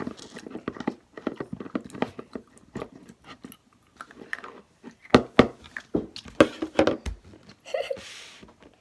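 A person chewing candy, with irregular wet smacking clicks. A few louder knocks come about five to seven seconds in.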